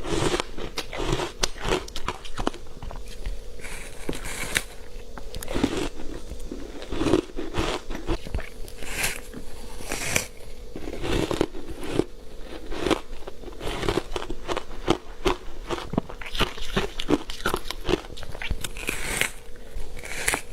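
Ice pieces coated in matcha powder being bitten and crunched close to the microphone: a continuous, irregular run of sharp cracks and crunches with chewing between them.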